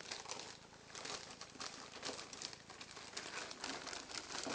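Irregular rustling, crinkling and light clicking as small removed car parts are handled and rummaged through.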